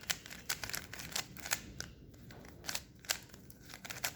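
Budget plastic 3x3 speed cube being turned by hand: irregular clicks of its layers, several a second.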